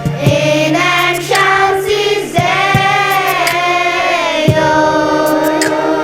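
A school choir of young voices singing, gliding between long held notes.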